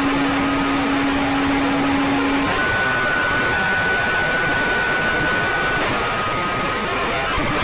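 Synthesized mock emergency alert alarm: a loud, dense hiss like static with steady electronic tones over it. A low tone stops about two and a half seconds in, and high steady tones take over, stepping up in pitch near the end.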